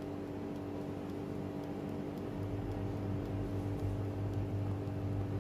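Electric air fryer running: its fan and heater give a steady, even hum.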